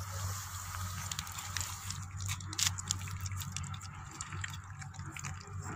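Several puppies eating pieces of roti from a metal plate: quick, irregular wet lapping and chewing clicks over a low steady hum.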